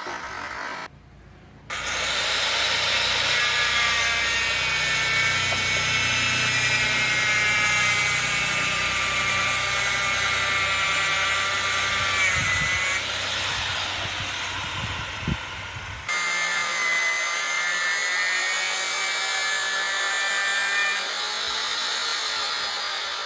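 Concrete cutting saw running and cutting concrete: a steady high whine over grinding noise, its pitch sagging slightly as the blade works, with an abrupt break about 16 seconds in.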